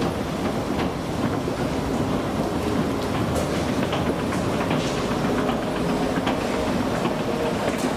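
Escalator running: a steady mechanical rumble with a low, even hum and light clattering from the moving steps.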